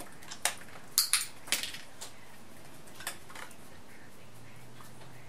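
A few sharp, light clicks and taps during clicker training of a Labradoodle on a hard floor. The loudest is a quick pair about a second in, with single clicks just before and after it and a fainter one near the middle.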